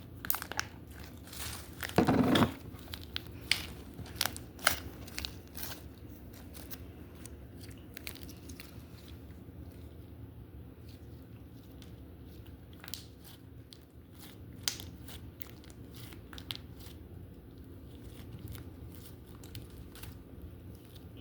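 Slime wax being squeezed and pressed by hand, its hardened coating giving sharp crackles and pops, thick and loudest in the first few seconds, then sparser.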